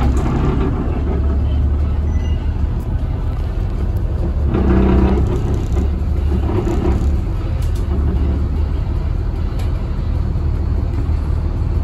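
Denning Phoenix Low Floor bus's CAT diesel engine running under way, a steady low rumble heard from inside the passenger cabin, swelling briefly about four and a half seconds in.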